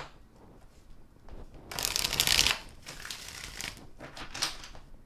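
Tarot deck being shuffled by hand: a loud rush of cards flicking rapidly past one another about two seconds in, then lighter, scattered card flicks and rustles.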